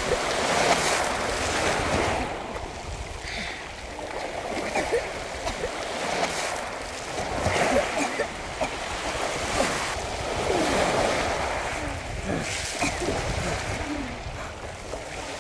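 Small sea waves washing over a pebble shore, with splashing from people swimming and crawling through the shallow water.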